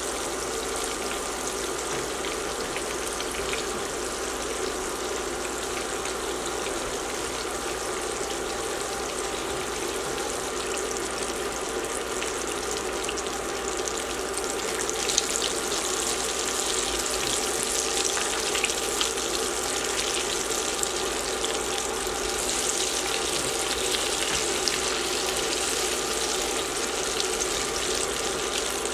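Battered tilapia fillets deep-frying in hot oil in a cast-iron skillet: a steady bubbling sizzle. About halfway through, as the fillets are turned, there is a sharp tap and the sizzle grows louder and more crackly.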